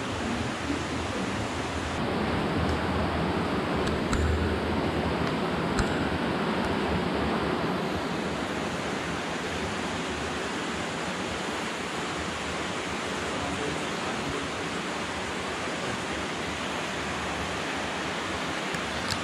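Steady rush of flowing water inside a cave, a little louder between about two and eight seconds in, with a couple of faint knocks.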